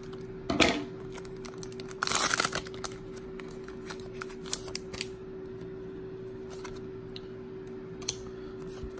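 Foil booster pack being cut open with scissors, with one loud cutting noise about two seconds in, followed by light crinkling of the foil and small clicks as the cards are pulled out. A faint steady hum runs underneath.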